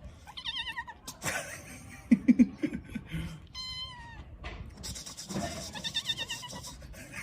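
Kitten meowing in short, high, wavering cries, several times over. Short bursts of a man's low voice about two seconds in are the loudest sound.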